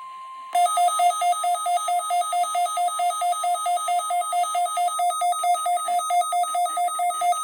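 Weather radio receiver's alert alarm sounding for an incoming Amber Alert: a loud, rapid beeping that alternates between two pitches, several beeps a second. It starts about half a second in, when a steady attention tone ends.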